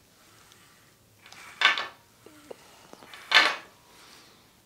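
Home-made cable pulley rig being worked through tricep extension reps: two short sliding rattles, about a second and a half apart, as the cable runs through the pulley and the weight moves.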